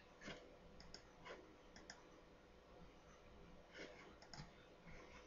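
Near silence broken by faint, scattered short clicks.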